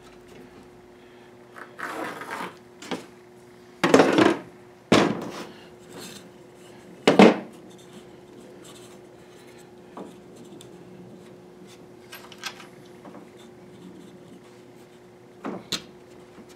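Wooden fence slats and a cleat being slid and knocked about on a plastic folding workbench as they are squared up: a few short scrapes and knocks, the loudest about four and seven seconds in, over a faint steady hum.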